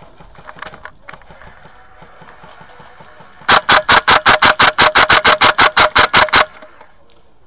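Airsoft rifle firing a rapid string of about twenty shots, roughly seven a second, starting about halfway through and lasting about three seconds. Before that there is only faint background noise.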